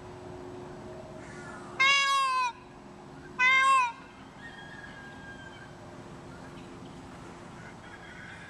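Indian peafowl calling: two loud, cat-like cries about a second and a half apart, each under a second long and dropping in pitch at the end.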